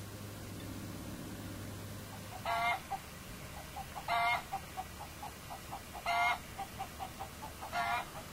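A chicken clucking: a run of short, quick clucks broken by four loud, drawn-out calls about two seconds apart, the first about two and a half seconds in.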